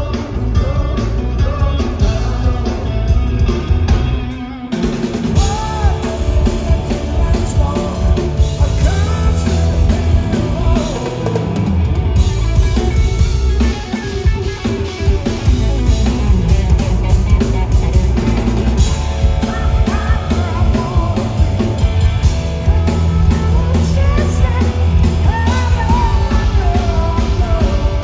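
Rock power trio playing live and loud: a Telecaster-style electric guitar through Marshall amps, bass guitar and drum kit, with singing at times. The band drops out briefly about four seconds in, then comes back in.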